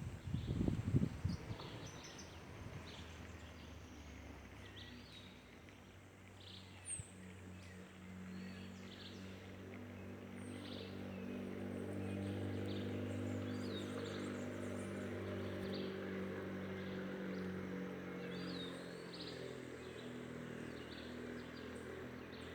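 Small birds chirping and calling with short, scattered high notes. From about a third of the way in, a steady low engine hum comes up underneath and holds.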